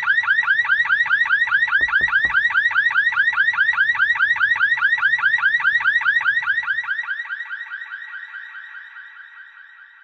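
Car alarm siren sounding a fast, even run of repeated electronic sweeps, about five a second, with a couple of low thuds about two seconds in. The alarm fades away over the last few seconds.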